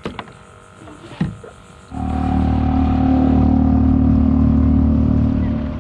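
A small boat motor on a fishing kayak running steadily. It starts abruptly about two seconds in at a constant pitch and eases off shortly before the end.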